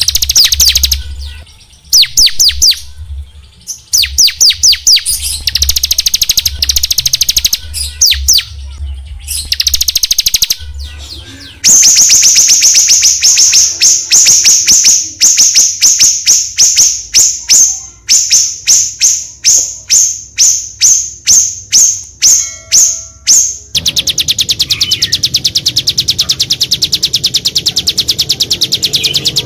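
Small songbirds singing in an edited masteran mix of high-pitched calls: bursts of fast sweeping notes, then a long run of rapidly repeated sharp notes that gradually slow, then a dense continuous trill for the last few seconds. A low hum runs under the first part.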